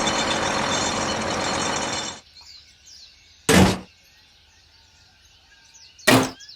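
A steady engine-like machine noise stops suddenly about two seconds in. Faint birdsong follows, broken twice by a loud, short thump.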